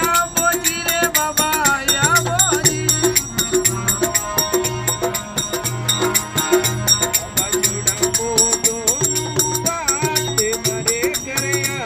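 Background music with a steady rhythm of shaker-like percussion, a pulsing bass and a bending melody line in a folk style.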